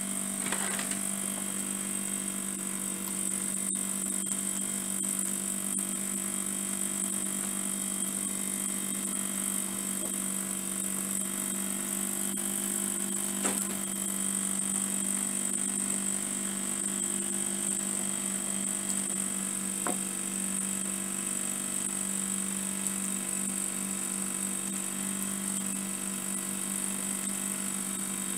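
Two small oscillating-cylinder (wobbler) model steam engines running together: a steady high hiss of steam over a constant hum, with a few faint clicks.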